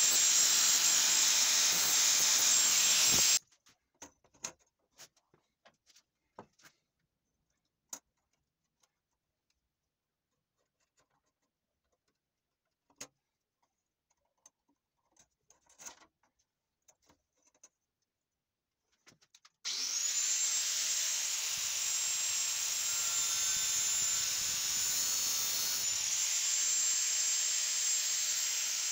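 Angle grinder running against a steel saw blade held in a vise, cutting off abruptly about three seconds in. Then come faint clicks and taps of the blade being handled and marked. About twenty seconds in the grinder starts again, its whine rising as it spins up, and runs steadily.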